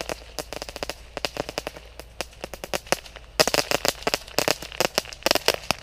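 Small firework taped to a boomerang in flight, crackling: a rapid string of sharp pops, several a second, thickening into denser runs about halfway through and near the end.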